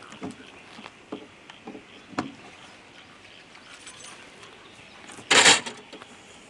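Bed leg supports of a slide-on camper being lowered and set in place: a few light clicks and knocks, then one short loud clatter a little over five seconds in.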